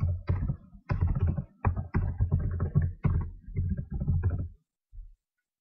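Computer keyboard being typed on, heard as a quick irregular run of dull, bassy key thumps and clicks that stops about four and a half seconds in, with one last thump shortly after.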